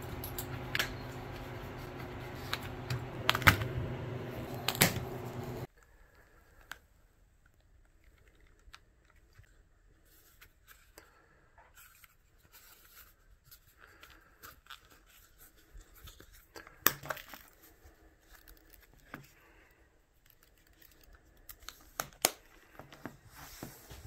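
Hand-stitching a leather wallet in a wooden stitching clamp: sharp clicks and snaps of needles and thread being pulled through the leather over a steady box-fan hum. The hum cuts off abruptly about six seconds in, leaving faint, scattered taps and rustles of leather being handled.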